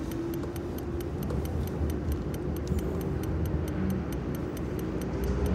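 A car's indicator flasher ticking evenly, about four times a second, inside the cabin over low road rumble. A faint whine rises slightly in pitch near the end.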